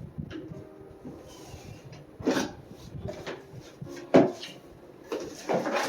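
Gift packaging and items being handled and unpacked: several bursts of rustling and scraping, with a sharp knock about four seconds in.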